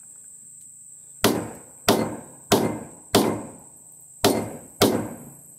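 A wooden baton knocking six times on the handle of a hand auger, driving its gouge into a pear-wood log. The sharp knocks start about a second in, come about two a second, and pause briefly after the fourth.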